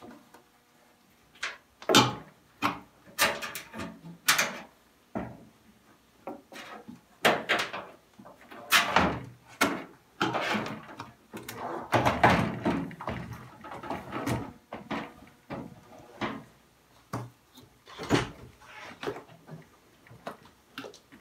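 Washing machine tub and its suspension springs being handled and worked free of the metal cabinet: a series of irregular clunks, knocks and scrapes of hard plastic and metal, with short quiet gaps between them.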